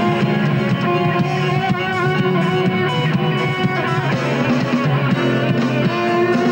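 Rock band playing live, with an electric guitar lead to the fore over drums and keyboards. The guitar holds sustained notes, some of them bent and wavering.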